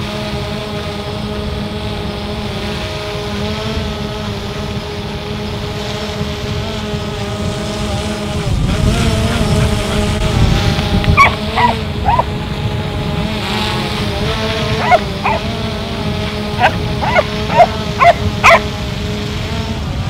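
A small drone's rotors humming steadily, with a dog barking sharply about ten times over the second half.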